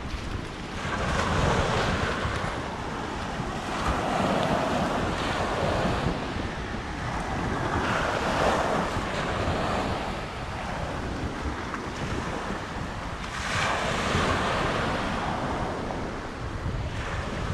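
Sea waves washing onto the shore, swelling and falling back every few seconds, with wind buffeting the microphone.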